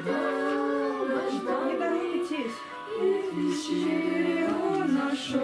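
A Christmas song: music with singing voices, held notes over a lower line that steps from note to note.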